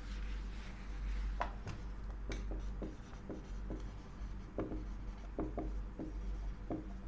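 A duster wiping a whiteboard, then a marker pen writing on the whiteboard in a series of short strokes, over a low steady hum.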